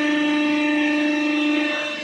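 Hydraulic baling press's motor-driven pump whining steadily, one held tone with overtones, easing slightly near the end.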